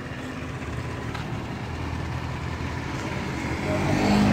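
A motor vehicle engine running steadily, growing louder about four seconds in.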